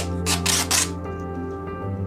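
Background music with sustained notes, crossed by a few short hissing noise bursts in the first second.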